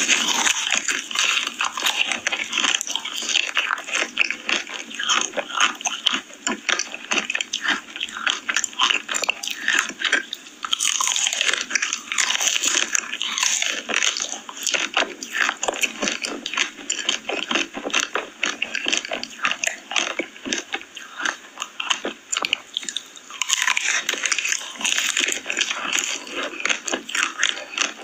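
Close-miked eating: a person biting and chewing crunchy food, a continuous run of quick, loud crunches and crackles.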